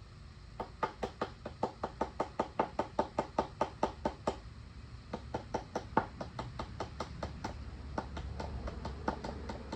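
A screwdriver's plastic handle tapping the back of a utility knife blade in a quick series of light knocks, about four a second, driving the blade under the edge of a glued plug disc. After about four seconds the taps turn fainter and more irregular.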